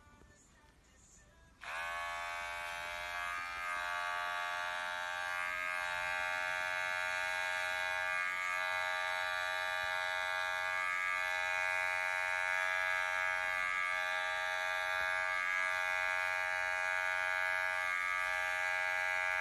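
Electric pet hair clippers switch on about two seconds in and buzz steadily, trimming the fur on a cat's paw.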